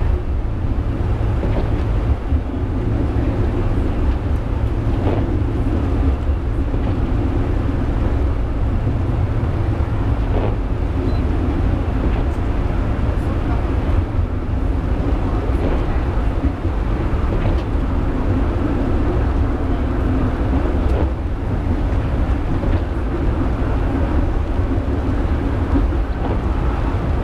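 Penang Hill funicular railway car climbing, heard from the driver's cab: a steady low running rumble with a few faint clicks.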